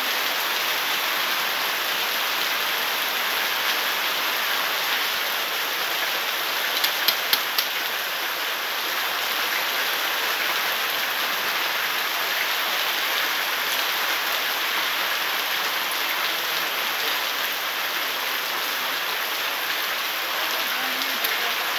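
Heavy tropical downpour: a steady hiss of rain pouring onto wet pavement, with a few quick clicks about seven seconds in.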